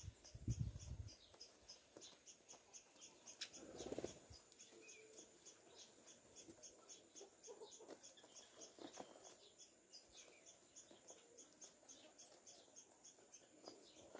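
Faint insect calling, a steady run of high ticks about five a second over a thin high whine. A few soft low bumps come in the first four seconds, and faint short calls are scattered through.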